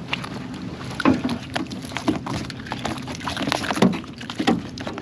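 A string of irregular knocks, taps and a few heavier thuds from handling on the boat, over a steady low hum.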